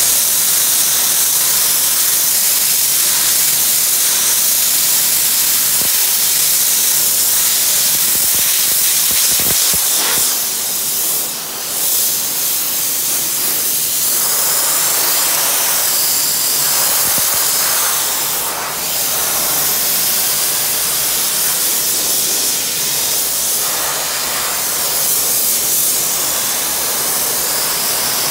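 Sandblaster nozzle blasting abrasive in a continuous loud hiss, easing off briefly twice, about 11 and 18 seconds in.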